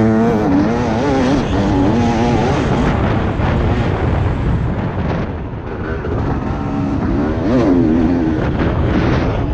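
TM 300 EN two-stroke dirt bike engine revving up and down under riding, its pitch wavering with the throttle and climbing sharply again near the end, with wind rushing over the helmet camera's microphone.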